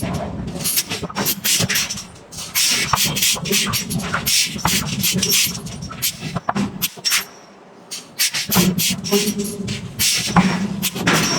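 Forging work on hot iron: rapid, irregular blows and sharp hissing bursts, several a second, easing off briefly about two-thirds of the way through.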